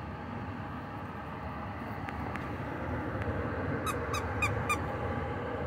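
A puppy chewing a squeaky plush duck toy, setting off its squeaker four times in quick succession about four seconds in.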